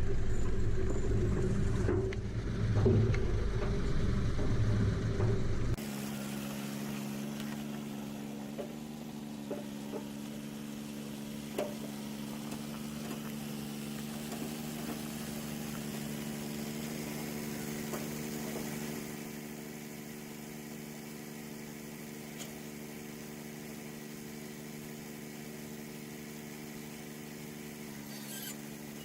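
Tractor engine running: a loud low rumble for about six seconds, then a sudden change to a quieter, steady engine hum with a few light clicks.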